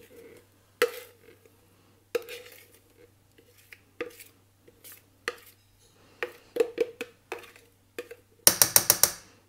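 A metal spoon scraping batter out of a ceramic mixing bowl into a baking tin, with scattered clinks and scrapes. Near the end comes a quick rattle of about seven sharp taps, the loudest sound.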